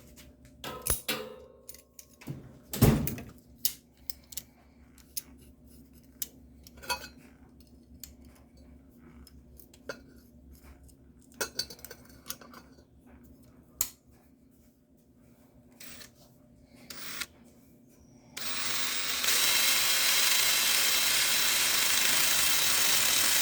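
Scattered metal clinks and knocks of the needle-nose pliers and tools being handled, then about 18 seconds in a power tool starts and runs steadily and loudly.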